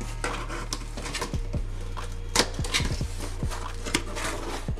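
Corrugated cardboard shipping box being handled and its flaps worked open: scattered rustles, scrapes and taps of cardboard, the loudest a little past halfway.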